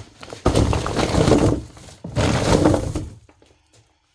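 Two loud bursts of kitchen clatter, each about a second long, about half a second and two seconds in.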